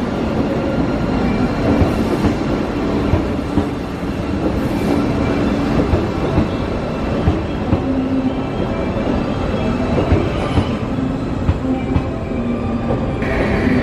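JR 381 series 'Super Yakumo' electric limited express train running past along the platform, with a steady rumble, a low hum and irregular clacks of the wheels over rail joints. A higher tone comes in near the end.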